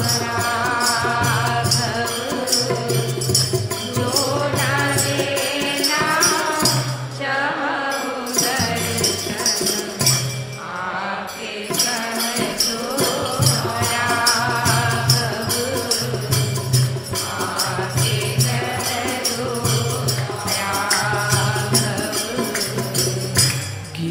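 Hindu devotional kirtan music: a melody line over a steady repeating beat, with continuous jingling of small hand cymbals.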